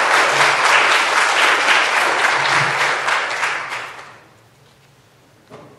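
Audience applauding, dying away about four seconds in, followed by a single soft thump near the end.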